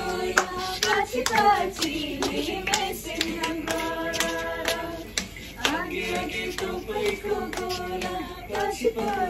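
A small group of women singing together while clapping their hands in a steady rhythm to keep time for a dance.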